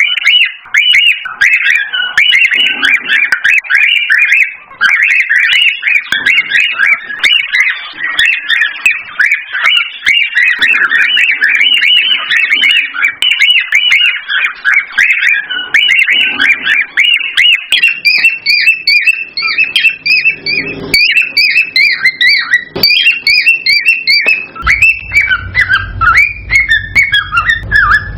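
Cockatiels chirping and whistling rapidly and without pause, calls running into one another. About two-thirds in, a higher, thinner chirping joins, and a low hum comes in near the end.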